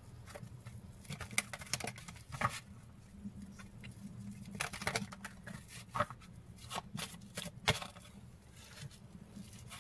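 Faint, irregular rustles and light clicks of a deck of oracle cards being shuffled by hand, with a few sharper snaps scattered through.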